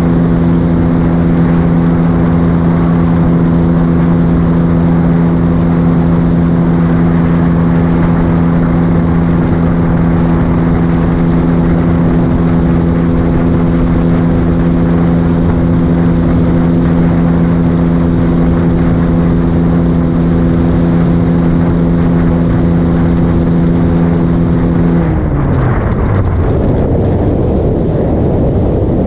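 Motorcycle engine running at a steady cruising speed under heavy wind rush over the mounted camera. About 25 seconds in, the engine note slides down in pitch and fades, leaving mostly wind noise.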